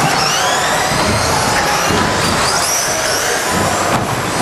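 Several electric RC racing trucks with 13.5-turn brushless motors running on a carpet track, their motors whining up and down in pitch as the drivers accelerate and back off, several whines overlapping over a steady background din.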